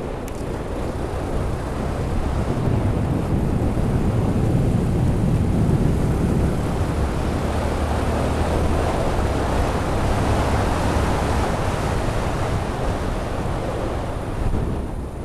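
Wind buffeting the microphone of a helmet-mounted Freedconn R1 camera, muffled by a deadcat windscreen, on a moving motorcycle. It is a steady, low rumbling rush that grows louder over the first few seconds and then holds.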